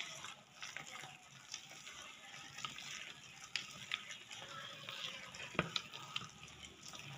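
A hand mixing thick lentil and gram-flour batter in a stainless steel bowl: faint wet stirring with a few small sharp ticks scattered through.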